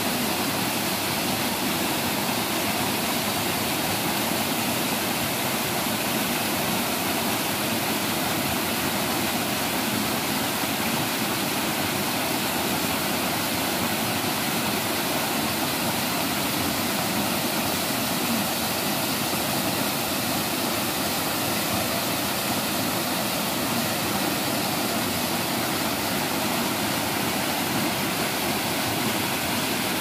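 Small waterfall: water cascading over rocks with a steady rushing that does not change.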